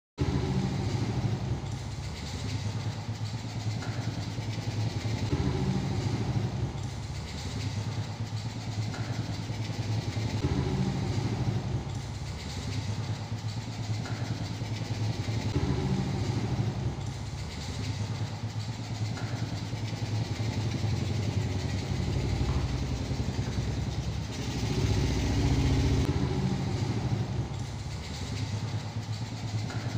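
Small underbone moped's single-cylinder engine running, swelling and falling in loudness every couple of seconds, with a longer, louder stretch about three-quarters of the way through.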